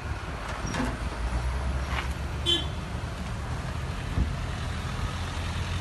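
Heavy truck's diesel engine running steadily with a low rumble. A brief high squeak comes about two and a half seconds in, and a single knock just after four seconds.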